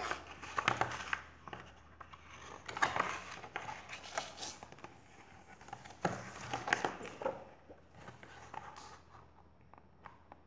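Pages of a large hardcover picture book being turned and handled: a series of short papery rustles and flaps spread over several seconds.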